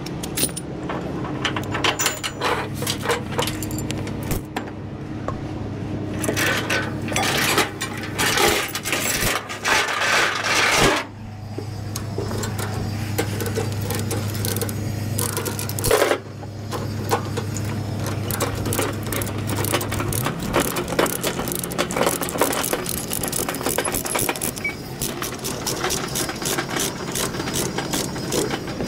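Steel load-securement chains and grab hooks clanking and rattling against a steel-and-wood trailer deck as the chains are taken off, in many irregular metallic clinks. A steady low hum runs underneath and shifts in pitch about twenty seconds in.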